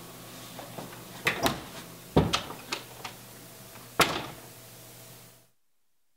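Interior door being handled and shut: a series of sharp knocks and thuds, the loudest about two seconds in and a loud bang about four seconds in as the door closes. The sound cuts out shortly before the end.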